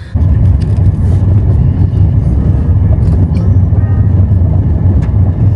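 Car on the move: a loud, steady low rumble of engine and road noise that starts abruptly.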